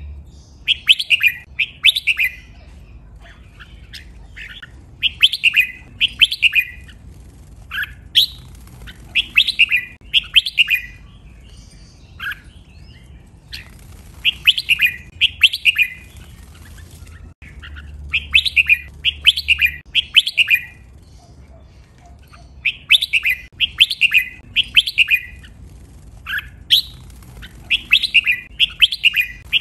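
Red-whiskered bulbul singing: bright phrases of several quick whistled notes, coming in short bursts with brief pauses between them.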